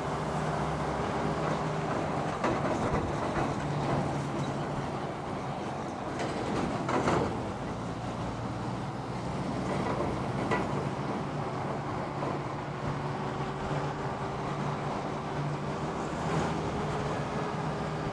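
Electric unicycle ride: a steady rushing noise with a low hum that drifts slightly in pitch, and a few knocks, the loudest about 7 seconds in.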